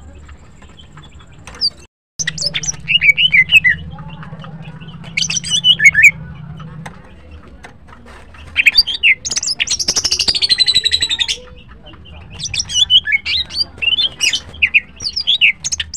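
Female green leafbird (cucak ijo) singing in bursts of high, fast, warbling chirps, with a denser, louder stretch about halfway through.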